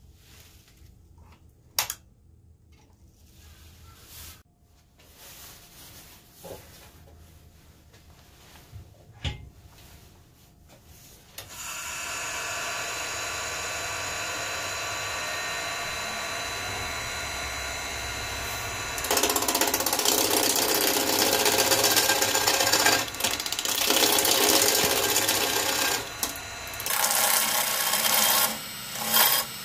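A couple of knocks, then a wood lathe running steadily with a fresh cherry log spinning on it. From a little past halfway, a gouge cuts into the spinning log with a loud, continuous scraping as shavings fly, pausing briefly a few times.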